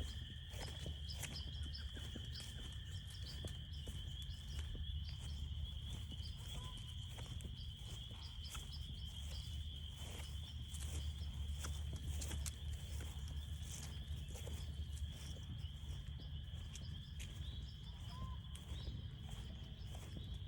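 Chorus of frogs calling: a steady, high-pitched, continuous trilling, with a lower trill that stops about four seconds in. Underneath are a low rumble and scattered light footsteps on a trail.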